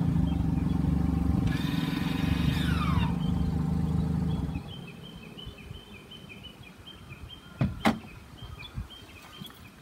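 A parked minivan's engine idles with a steady low hum, with a falling whine a second and a half to three seconds in, and cuts off suddenly about four and a half seconds in. Near the end, two sharp clicks come as the driver's door is unlatched and swung open.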